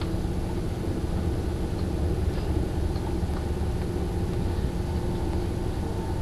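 Steady rumble of a moving passenger train heard from inside the carriage, with a faint steady hum over it and a few faint ticks.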